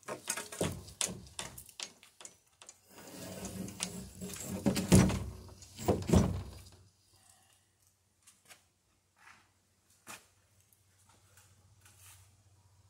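Long wooden planks being handled on a trestle rack: a run of knocks, then a longer sliding scrape that builds to two loud thumps near the middle, followed by a few scattered knocks.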